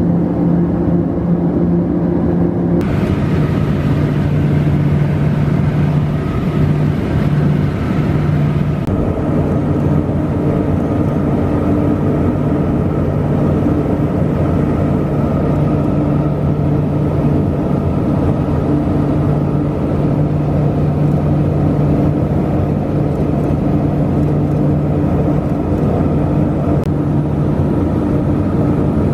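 Cabin noise of a LET L-410 Turbolet in flight: a steady drone of its twin turboprop engines and propellers with a continuous hum. About three seconds in, the hum drops slightly in pitch and the sound turns brighter.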